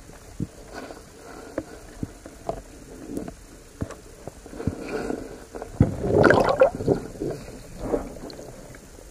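Underwater sound picked up by a submerged camera as a diver swims: scattered sharp clicks and knocks, with a louder gurgling rush of water about six seconds in.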